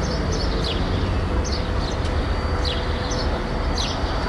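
City street ambience: a steady low rumble of traffic with a small bird chirping over it in short, falling chirps, several times.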